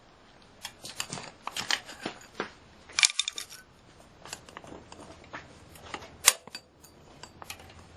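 Screwdriver prying at a hand truck wheel's push-on axle retaining ring: a series of sharp metallic clicks and short scrapes, loudest about three seconds in and again just after six seconds.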